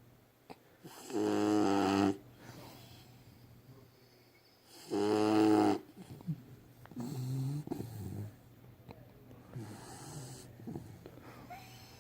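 Puppy snoring: two loud, drawn-out, pitched snores about a second long, one about a second in and one about five seconds in, then a softer snore at about seven seconds and fainter breaths after.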